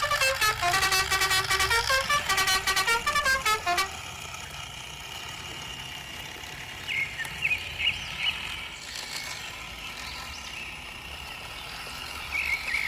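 A horn-like melody of quick repeated notes for about four seconds, then a quieter steady hum with a few short chirps.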